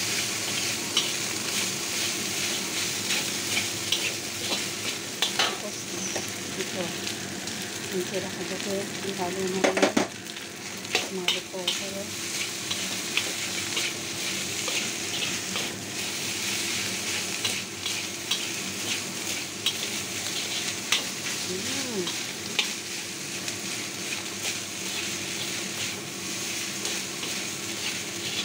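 Fried rice sizzling in a hot wok while a spatula stirs and tosses it, with frequent short scrapes of the spatula on the pan. A louder knock of the spatula against the wok comes about ten seconds in.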